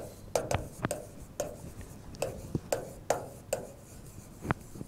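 Chalk writing on a chalkboard: a series of irregular short taps and scrapes as letters are formed.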